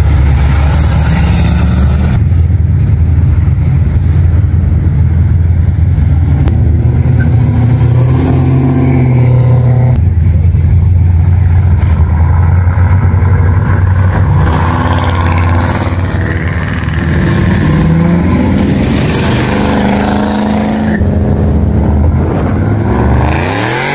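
A loud, deep exhaust rumble from several hot rods and muscle cars pulling away past one after another: a black vintage sedan hot rod, a red early-1970s Chevrolet C10 pickup, then a red Pontiac GTO, with the engine pitch rising near the end as the last car accelerates.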